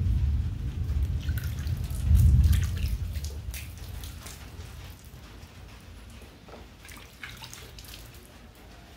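Water splashing and dripping as a person scoops it up and rubs it over her arms, in scattered splashes during the first half and again near the end. A heavy low rumble, loudest about two seconds in, runs under the first three seconds.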